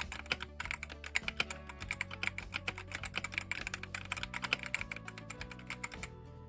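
Rapid typing on an AJAZZ AK820 gasket-mounted mechanical keyboard with red linear switches and PBT keycaps: a dense run of keystroke clacks, pausing briefly near the end, over quiet background music.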